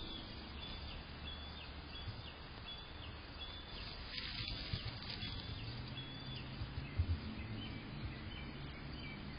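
A bird repeats a short, high call roughly every two-thirds of a second, fading to fainter calls later, over a steady hiss. A brief rustle comes about four seconds in.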